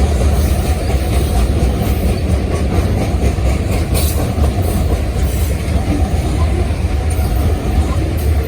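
Freight train rolling past: a steady, loud rumble of wheels on rail, with no horn sounding.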